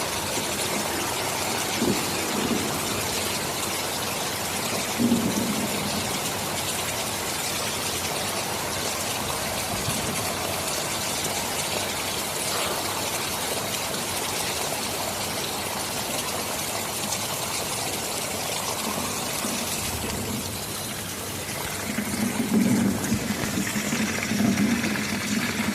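Steady heavy rain hissing, with brief low thunder rumbles a couple of times early on and a longer, louder rumble swelling over the last few seconds.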